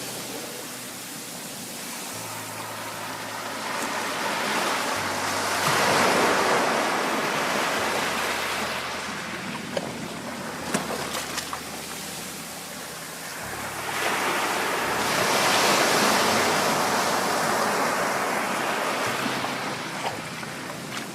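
Sea waves breaking and washing in: two large swells of surf, about ten seconds apart, each building up and then draining away, with quieter surf between them.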